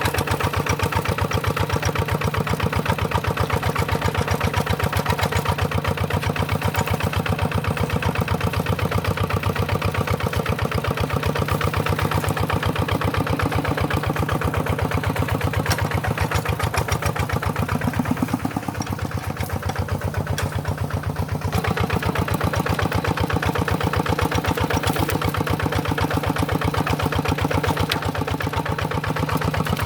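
Tractor engine running steadily with a fast, even chugging. It dips a little in level for a few seconds past the middle.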